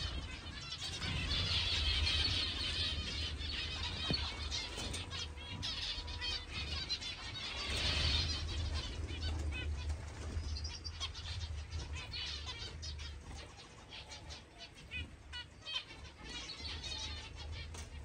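A flock of small finches in an aviary chirping continuously, with wings flapping. The chatter swells about two seconds in and again around eight seconds.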